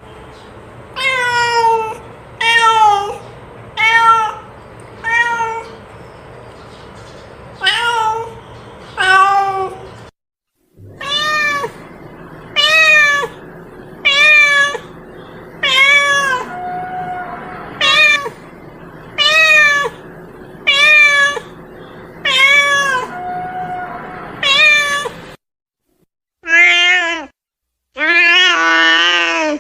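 Domestic cat meowing over and over, roughly one meow a second, each call rising then falling in pitch, with a short pause about ten seconds in. The last couple of meows near the end are longer and more drawn out.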